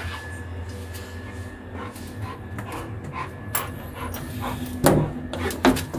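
A sliding metal bolt on a door being worked open, with a series of sharp clanks and knocks, the loudest about five seconds in and again just before the end, over a steady low hum.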